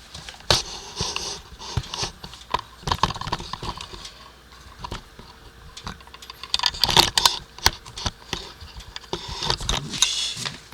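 Irregular knocks, clicks and rustling, as of someone handling things by hand, in two busy stretches with a lull in between. No engine is running.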